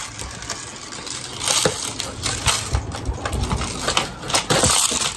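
Scattered plastic clicks, knocks and rattles of a small plastic marble game and its cardboard packaging being handled, with a few dull thumps near the middle.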